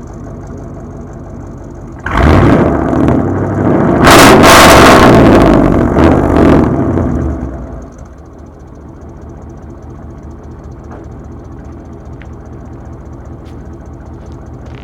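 A 6.0 L Vortec V8 running through true dual 2.5-inch straight pipes idles, is revved hard about two seconds in and held high for about five seconds with a couple of small dips, then drops back to a steady idle.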